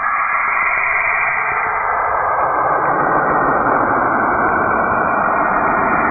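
Steady rushing, hiss-like noise presented as the sound of a planet. It grows fuller and lower about halfway through.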